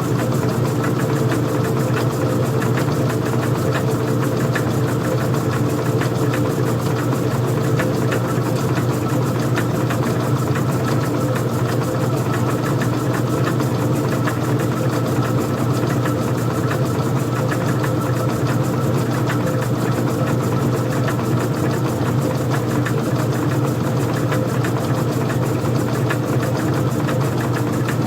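Old-style front-loading washing machine running: a steady low mechanical hum with a faint rapid ticking.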